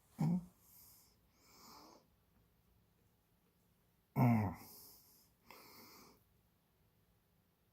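A man's voice making two short grunts, one right at the start and a louder one about four seconds in, each falling in pitch, with softer breaths between them.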